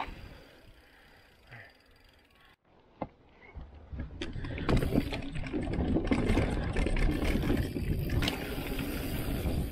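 Nukeproof Giga mountain bike riding a dirt trail: the tyres rumble over the ground, wind rushes over the camera, and sharp clicks and rattles come from the bike over bumps. It is quiet for the first couple of seconds, cuts out for a moment, then gets loud from about four seconds in.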